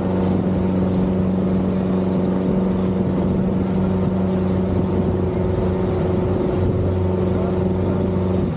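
Outboard motor of a rigid inflatable boat running steadily under way, a constant engine drone over the rush of water from the wake.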